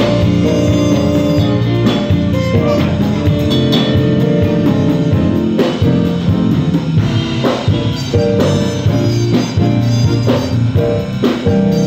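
Band music with drum kit, guitar and keyboard, the drums hitting every second or so.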